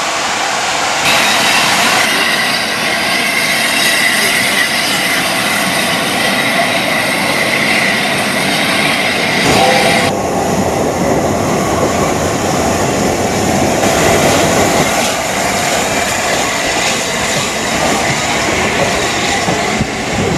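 LNER Class A4 Pacific steam locomotive No. 60007 and its coaches rolling slowly past: a steady rumble of wheels on rail, with a high, thin wheel squeal through the first half. The sound changes abruptly about ten seconds in.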